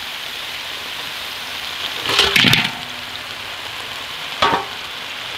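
Oil and spice paste frying in a metal wok: a steady sizzling hiss. A louder surge comes about two seconds in and a brief one near the end.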